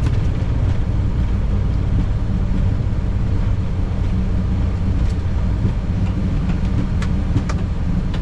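Steady low rumble inside a Boeing 737 cockpit as the airliner rolls on the runway after touchdown: engine noise and the undercarriage running over the runway. A couple of faint clicks come near the end.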